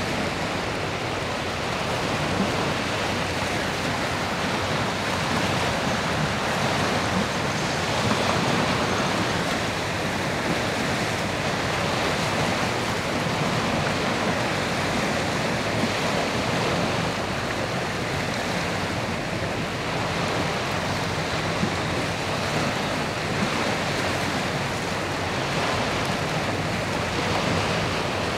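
Choppy sea water washing steadily, with wind on the microphone and a faint steady low hum underneath.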